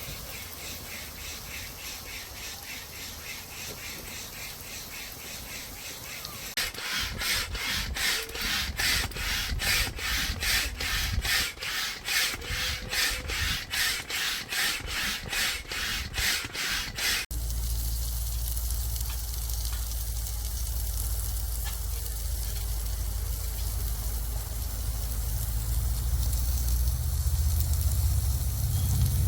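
Regular rubbing or scraping strokes, about twice a second, for about ten seconds. They stop suddenly, and a steady low rumble follows and grows louder near the end.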